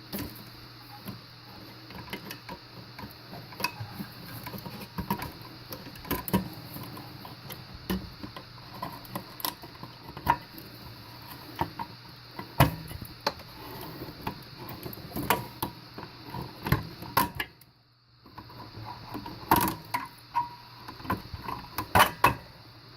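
Irregular small clicks, taps and knocks of hands working on parts and wiring inside a pinball machine's cabinet, over a low steady hum. The sound cuts out completely for a moment near the three-quarter mark.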